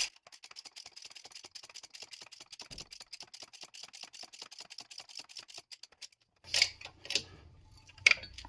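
Fast, even mechanical ticking, about a dozen clicks a second, as a press drives a new hub bearing into the wheel hub; it stops after about six seconds and is followed by a couple of knocks.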